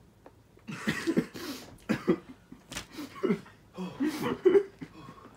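A person coughing several times in short, sharp bursts over about four seconds, starting just under a second in. The coughs are a reaction to sniffing a pungent, fiery snack.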